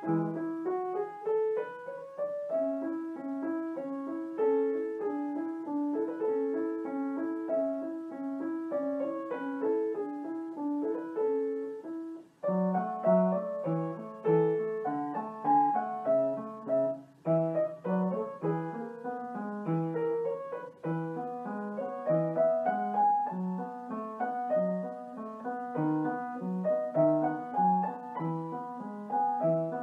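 Background piano music: a gentle melody over evenly repeated chords, with a brief break about twelve seconds in.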